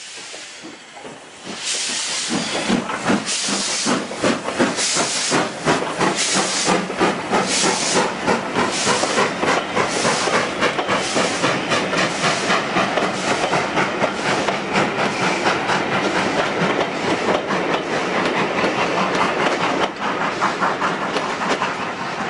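Steam locomotive working hard as it hauls a passenger train past: loud, regular exhaust beats with steam hiss, coming closer together as it passes, then the coaches rolling by.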